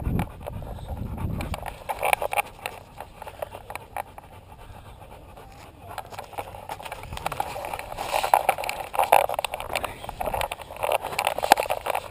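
Action camera on a walking dog's harness knocking and rustling as it jostles, with the dog's footfalls on a dirt trail as many short clicks. The rustling grows louder about two seconds in and again from about eight seconds on.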